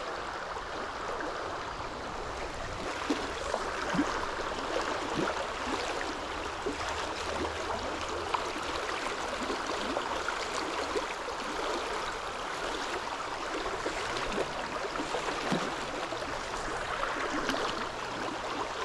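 Mountain trout stream running over riffles: a steady rush of flowing water, with a few faint ticks.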